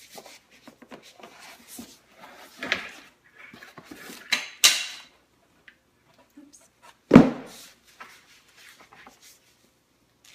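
Parts and packaging of an OXO On Barista Brain coffee maker being handled during unboxing: scattered clicks and knocks, two sharp rustling scrapes around four and a half seconds in, and a heavy thump about seven seconds in.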